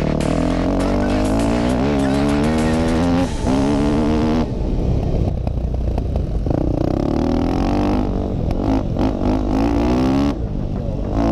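Dirt bike engine heard from the rider's own orange KTM, pulling under throttle. Its pitch climbs and then drops several times as the rider shifts and rolls the throttle on and off across rough ground.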